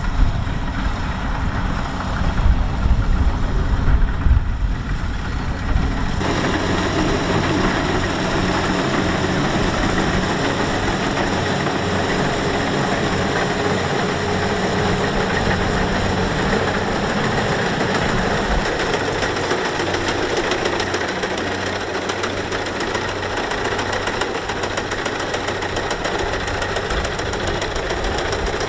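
Kubota DC-70X rice combine harvester's diesel engine running steadily. A deep rumble gives way abruptly to a busier, higher hum about six seconds in.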